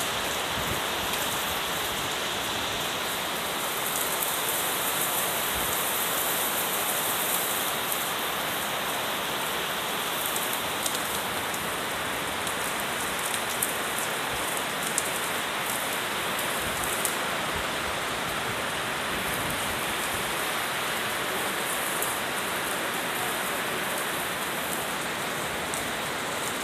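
Heavy rain pouring onto a paved street, a dense, steady hiss with a few sharp ticks of drops near the middle.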